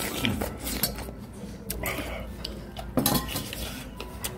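A metal spoon clinking against the stew pan and dishes, a few sharp clinks at irregular moments with the loudest about three seconds in.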